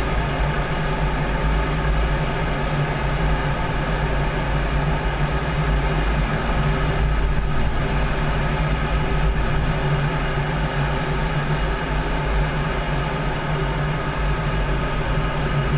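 Steady cockpit noise inside an F-16D Fighting Falcon in flight: a constant deep rumble and hum from the jet engine and the air rushing over the canopy, with several steady tones laid over it.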